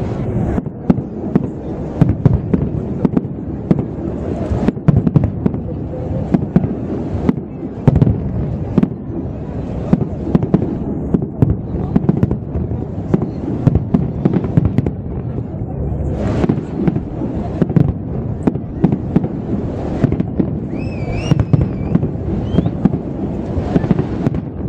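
Aerial fireworks shells bursting in a rapid, unbroken series of bangs over a continuous deep rumble. Near the end a wavering whistle sounds above the bangs.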